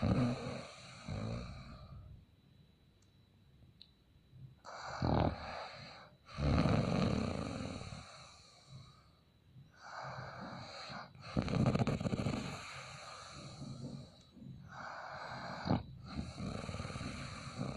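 A man snoring in his sleep, one noisy breath about every five seconds, four in all.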